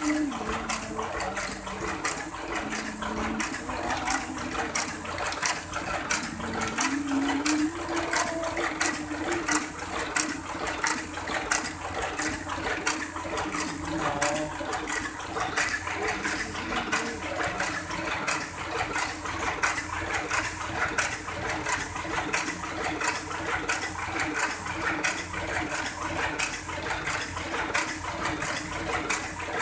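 Heidelberg GTO offset printing press running at speed, feeding and printing sheets with a fast, even clatter of clicks over a steady mechanical hum.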